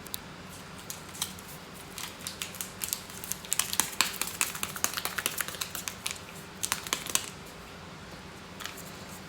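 A run of quick, light clicks and taps, densest through the middle, from the handling of cat medication packets and a food dish as the meds are added to the food.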